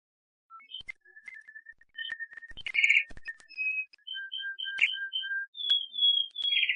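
Domestic canary singing a trainer song: rolls of clear whistled notes repeated several times a second at different pitches, with a louder buzzy note about three seconds in and again at the end, and a few faint clicks.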